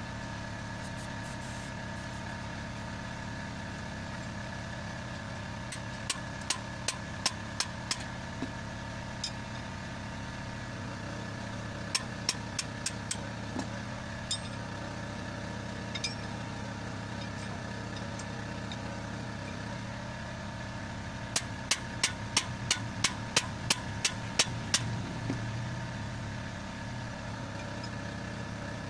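Three runs of sharp metallic clicks, two or three a second, from a ratchet wrench being worked on a bolt of a dump truck's rubber bumper. Under them runs the steady hum of an idling engine.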